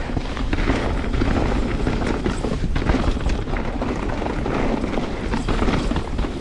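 Canyon Spectral 29 CFR mountain bike riding down a rough dirt trail: wind buffeting the microphone as a steady low rumble, with tyre noise and frequent short clattering knocks from the bike over the ground.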